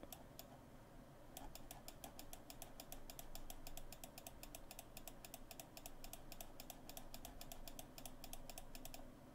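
Computer mouse button clicked over and over, faint and rapid, several clicks a second: a few clicks at first, then a steady run from about a second and a half in until just before the end.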